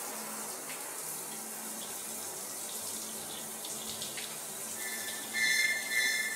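A shower running, water spraying steadily from the shower head. About five seconds in, high held tones of music come in over it and become the loudest sound.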